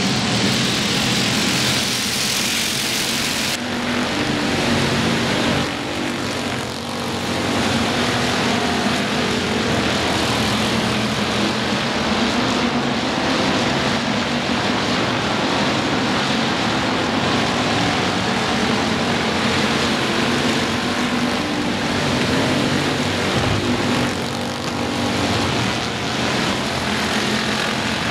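A field of dirt-track stock cars racing, several engines running together at speed and swelling and fading as cars pass. A harsh hiss lies over the first few seconds and cuts off suddenly.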